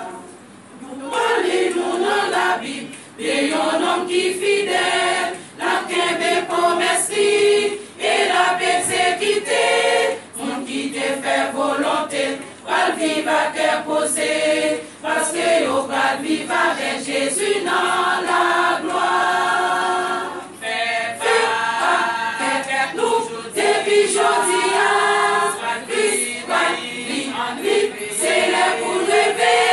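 Women's church choir singing a hymn in Haitian Creole, phrase after phrase with short breaks between the lines.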